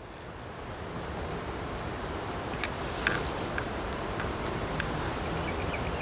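Steady insect chorus buzzing, growing a little louder over the first few seconds, with a few faint ticks.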